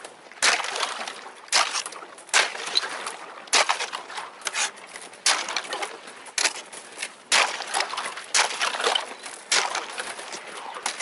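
Thin first ice, about half a centimetre thick, cracking and crunching as an inflatable Varvar-340 kayak and its paddle break through it. The crackling comes in sharp bursts about once a second.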